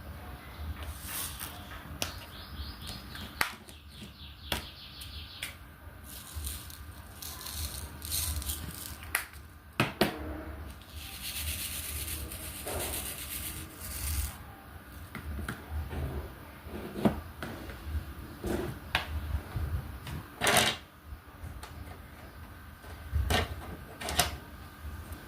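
Diamond painting work: irregular small clicks and taps of a drill pen and resin drills on the canvas and tray, with a few seconds of rustling about eleven seconds in.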